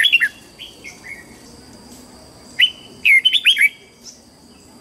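Red-whiskered bulbul singing: a short run of quick whistled notes at the start, then a longer phrase of sharp, downslurred whistles about two and a half seconds in.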